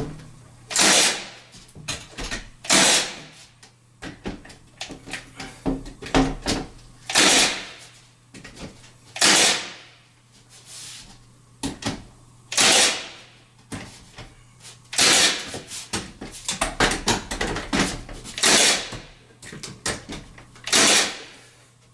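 Milwaukee cordless 16-gauge finish nailer firing nails into wooden window trim: about ten sharp shots, each with a short fading snap, spaced irregularly a second or two apart, with lighter clicks of handling between them.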